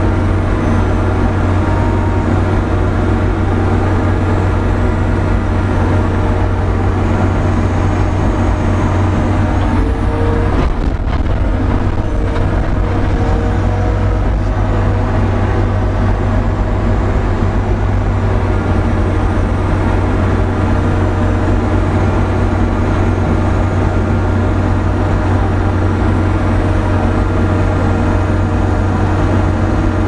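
New Holland C185 compact track loader's diesel engine running steadily under load, heard from inside the cab, as it powers a hydraulic snowblower that is throwing snow.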